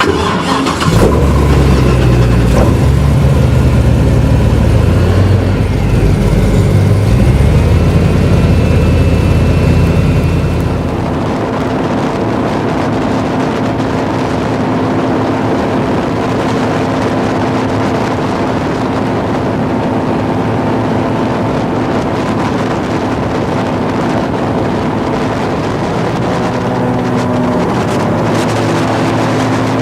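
Airboat engine and propeller running: loud and rough for the first ten seconds or so, then settling into a steadier, lower drone.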